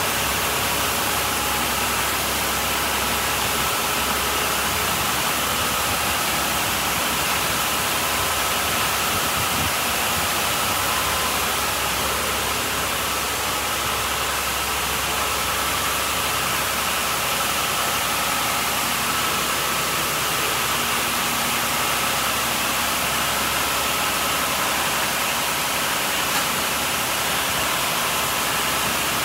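Mark VII Merchandiser in-bay automatic car wash running through its cycle: a steady rush of water spray with a constant mechanical whine.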